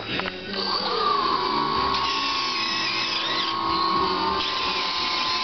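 Twin electric motors of an RC DC-3 model spinning up their propellers about half a second in, then running at a steady high whine that eases slightly lower in pitch after about four seconds.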